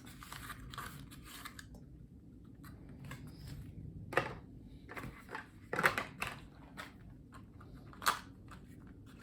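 Faint kitchen handling noises: soft rustling at first, then a few sharp clicks and knocks about four, six and eight seconds in.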